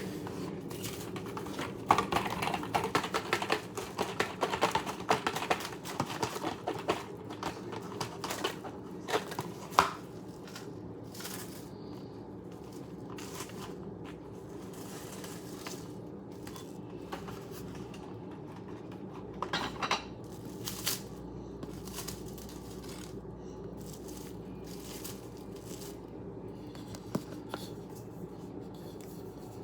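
Rustling and scattered light clinks and knocks of metal cake pans being handled, busiest through the first ten seconds and sparse after, over a steady low hum.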